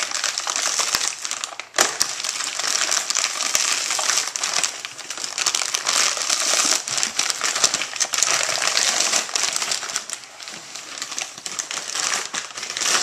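Shipping packaging being handled and opened: continuous crinkling and rustling with many small crackles, easing off briefly just before two seconds in and again near the end.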